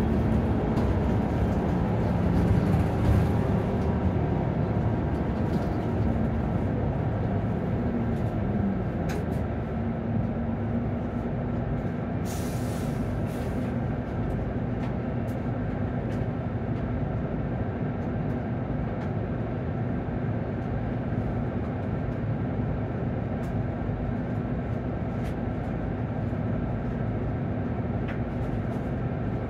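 Cabin sound of a Nissan Diesel PKG-RA274MAN city bus under way: the diesel engine and drivetrain drone steadily, dropping in pitch about eight seconds in. A short hiss of air comes about twelve seconds in.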